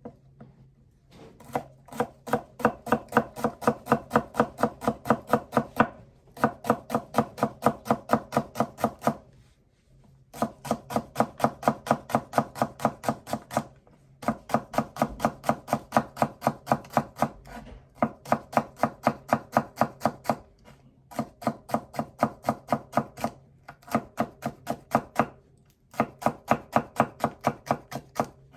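A kitchen knife chopping celery on a cutting board in quick, even strokes, about five a second, in runs of a few seconds with short pauses between them.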